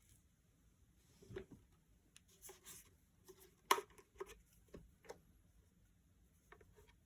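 Scattered light knocks, clicks and rustling of objects being handled, irregular and loudest about midway, with a few faint ticks near the end.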